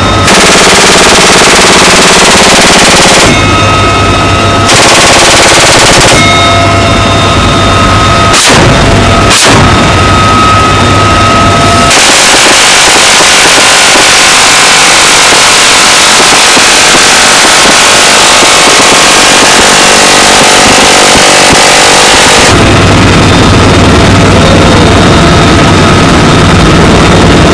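GAU-17/A six-barrel 7.62 mm minigun firing from a UH-1Y Huey's cabin door in three bursts: about three seconds, then a second and a half, then a long burst of about ten seconds. Each burst is one unbroken sound rather than separate shots. Between bursts the helicopter's steady whine and rotor hum come through, with two short sharp reports in the longer pause, and the helicopter alone near the end.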